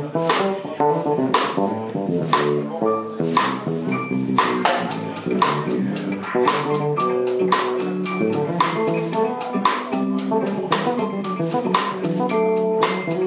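Live instrumental band of electric guitar, electric bass and drum kit playing. The drums strike about once a second, then pick up to a busier, faster beat about four seconds in.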